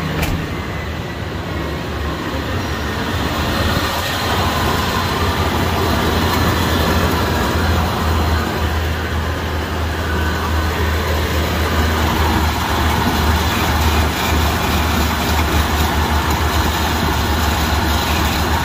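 A 1997 Ford F-250's 7.5-liter V8 idling, with a metallic scraping and rattling from the AC compressor clutch, whose face has collapsed and is jarring around. It grows louder about four seconds in and then holds steady.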